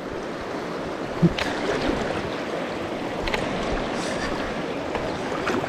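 Steady rush of river current flowing over shallows, with a few faint clicks.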